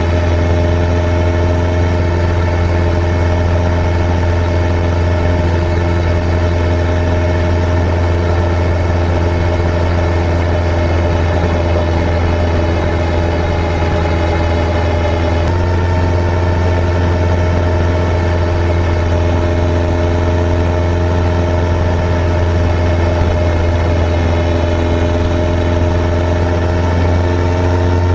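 Suzuki Hayabusa GSX-1300R motorcycle's inline-four engine running at a steady pitch. The note shifts slightly about halfway through and rises a little near the end.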